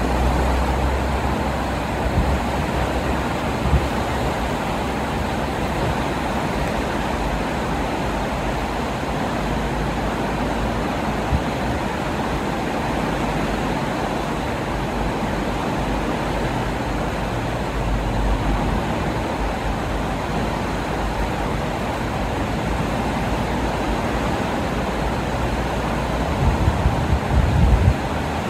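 Steady rush of fast-flowing, turbulent river floodwater, with a low rumble underneath. The low rumble swells, with a few knocks, near the end.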